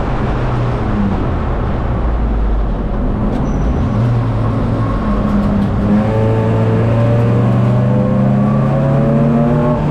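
Race car engine running hard on track over heavy road and wind noise. About halfway through, its note comes through clearly and climbs steadily as the car accelerates.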